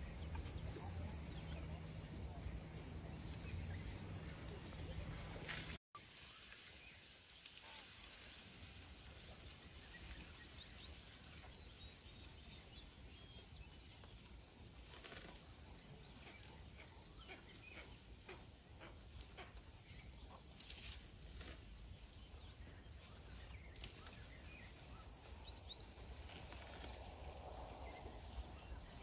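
Faint outdoor bush ambience. A regular high chirp, about two or three a second, over a low steady rumble, until a brief dropout about six seconds in. After that, scattered short bird chirps and faint clicks over a quiet hiss.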